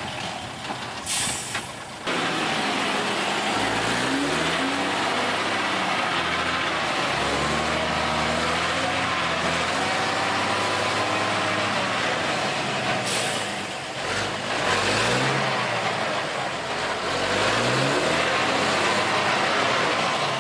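Csepel D-566 6x6 truck's diesel engine working off-road, its pitch rising and falling as the driver revs it. Two short hisses of air cut in, about a second in and again about thirteen seconds in.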